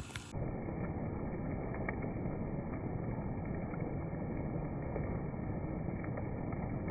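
Steady, dull noise of heavy rain falling, with nothing in the high range. It starts abruptly about a third of a second in.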